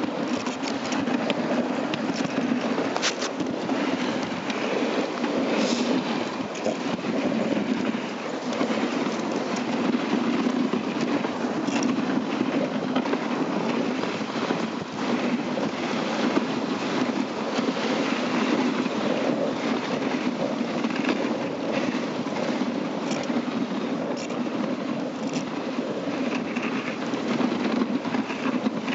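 Dog sled moving over snow: a steady scraping rumble from the runners, with a few sharp clicks and rattles from the sled.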